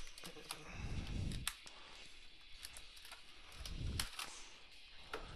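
Product packaging being pried and cut open by hand: scattered sharp clicks and crackles with a couple of dull handling bumps.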